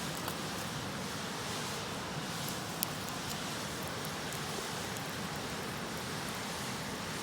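Wood campfire crackling with scattered small pops, one sharper pop about three seconds in, over the steady rush of a nearby river.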